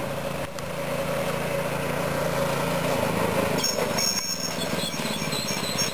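Mini bike's small engine running steadily as the bike rides toward the listener, growing slightly louder, its note shifting a little about halfway through.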